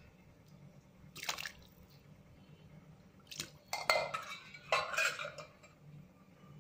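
Thick fenugreek-and-tamarind curry simmering in an open pan, bubbling and popping in a few short bursts, the loudest about four and five seconds in.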